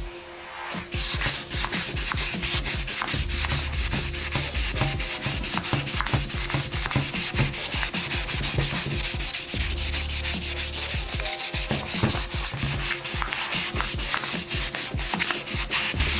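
Fine sandpaper rubbing back and forth over a vinyl steering wheel rim in quick, even strokes, starting about a second in.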